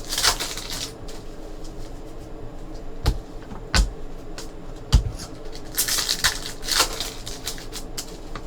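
Hockey trading cards being handled and slid against one another, with three short, sharp knocks as cards or packs are set down on the table.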